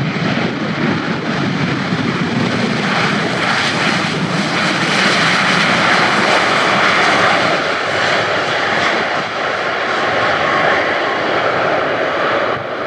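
Boeing 737-800's CFM56-7B jet engines during its landing roll on the runway. The engine roar grows louder a few seconds in and eases off near the end.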